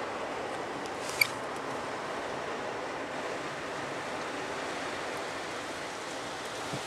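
Christ car wash working on the car, heard from inside the cabin: water spray and a spinning polyethylene brush make a steady rushing noise. One sharp click comes about a second in.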